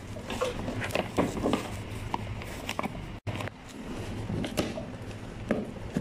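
Fingers scraping, tapping and prying at the lid of a cardboard toy box: a string of irregular scratches and taps over a low steady hum.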